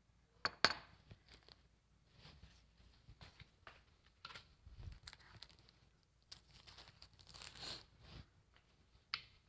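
A metal spoon clinks against a glass bowl once, sharply, about half a second in. Then the plastic packaging of spring roll wrappers crinkles and tears as it is opened, loudest about seven to eight seconds in.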